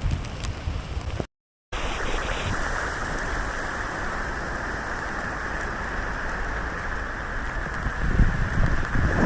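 Steady rushing hiss of heavy rain and wind on the microphone, broken by a brief cut about a second in.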